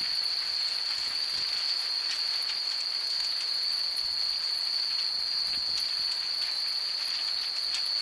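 Many Japanese wind chimes (furin) tinkling irregularly in the breeze, in scattered light clinks, over a steady high-pitched drone.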